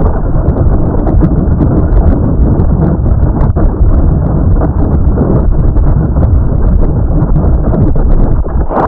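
Heavily distorted, muffled effects-processed bumper soundtrack: a loud, dense, rumbling noise full of rapid ticks, with no recognisable tune or voice.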